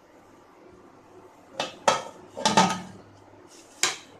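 Aluminium pressure cooker lid being set on and closed, several sharp metal clanks with a little ringing, the loudest about two seconds in.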